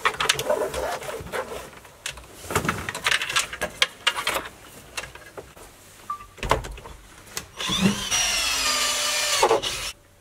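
Clicks and rattles of wiring-harness plugs and the plastic centre-console frame being handled. Near the end a small electric tool motor whirs for about two seconds, rising in pitch as it starts, then stops.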